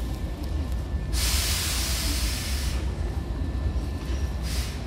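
A Hankyu 7000 series train's pneumatic system letting out a hiss of compressed air. It lasts about a second and a half, starting about a second in, and shorter hisses follow near the end, over a steady low rumble.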